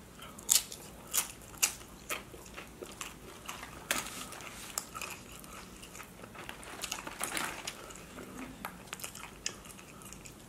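Crunching and chewing of loaded Dorito tortilla chips in the mouth. A run of sharp crunches comes in the first two seconds and another about four seconds in, then softer chewing.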